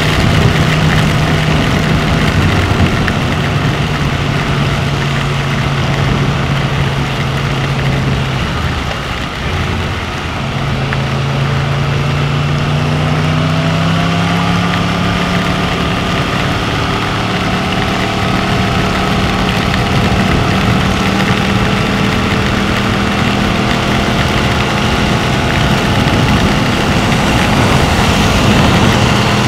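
Yamaha MT-10's crossplane inline-four engine with an Akrapovic exhaust, heard from the moving bike at a steady cruise. About nine seconds in the throttle eases off briefly, then the revs climb over the next few seconds and settle at a steady, slightly higher pitch.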